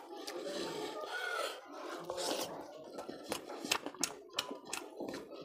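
Fingers mixing rice with fish curry on a plate, a wet rubbing and squishing. From about three seconds in comes a run of short, sharp wet clicks and smacks of eating by hand.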